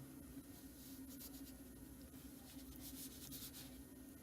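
Faint rubbing and light handling of a small coin battery in the fingers, over a low steady hum of room tone; the level stays close to near silence.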